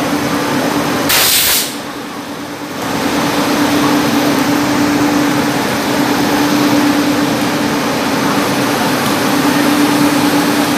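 WAP-7 electric locomotive running slowly in along the platform, with a steady hum, and a short loud burst of hiss about a second in.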